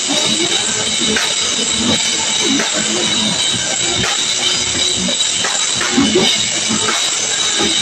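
Live band playing an instrumental passage without vocals: drum kit hits with cymbals washing over the other instruments.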